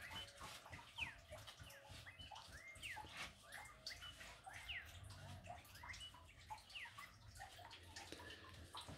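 Faint bird chirps, short and repeated every second or so, over quiet wet rubbing and dripping as gloved hands scrub a soaked dog's coat.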